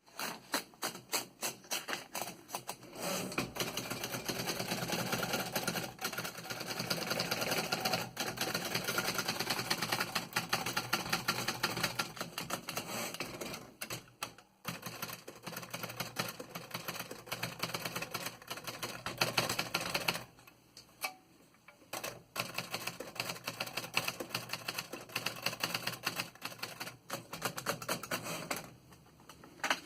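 A 1937 Underwood Noiseless desktop typewriter being typed on: fast runs of keystrokes, with brief pauses about halfway through and again a little after two-thirds of the way.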